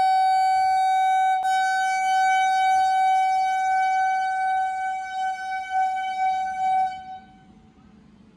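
Train horn sounding one long, steady single-note blast, with a brief catch about a second and a half in, dying away about seven seconds in.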